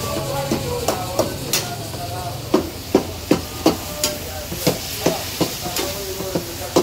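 Long metal spatulas and tongs clanking and scraping against karahi woks as meat and tomatoes are stirred, over steady frying sizzle. The clanks come in quick irregular strikes, loudest in a run about halfway through.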